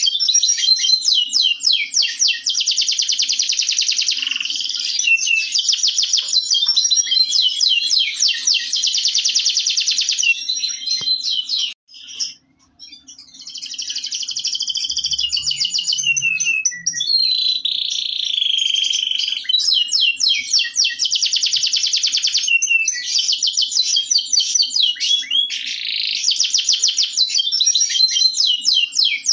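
Domestic canary (Indonesian local canary) singing long rolling phrases of rapid trills and chirps, broken by a short pause about twelve seconds in.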